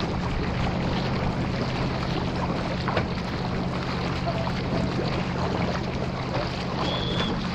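Water rushing and splashing along a surfski's hull and paddle blades as it is paddled at race pace, with wind on the microphone and a steady low hum underneath. Near the end a short, high, level whistle sounds, and a second one begins just after it.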